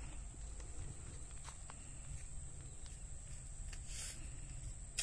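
Open-air ambience: a low rumble of wind on the phone's microphone, with faint scattered footsteps on dry, stubbly ground and a steady high-pitched whine. A short hiss comes about four seconds in.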